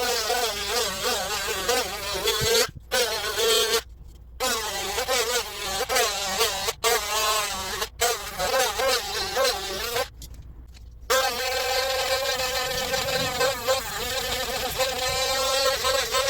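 Small handheld electric drill running with a high-pitched whine that wavers in pitch as it works, stopping briefly a few times and for about a second past the middle before starting again.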